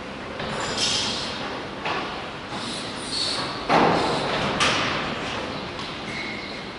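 Factory workshop noise: a steady hiss with irregular knocks and clatter, the loudest a bang a little over halfway through.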